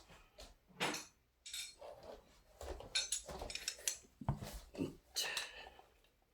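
Irregular metal clinks and scrapes from tools working on a Dura-Ace 7600 track hub, trying to free a part that is stuck and won't come out.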